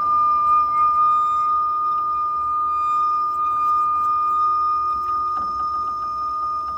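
Ideal Logic gas boiler whistling: a steady, high-pitched whistle with fainter tones beneath it, easing slightly toward the end. This is the noisy-boiler fault; the engineer's gas checks showed very high readings at minimum rate, which he puts down to a failing gas valve.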